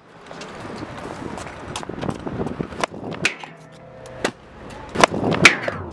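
Stunt scooter's small hard wheels rolling on paving stones, with several sharp clacks in the second half as the deck and wheels hit the ground on jumps.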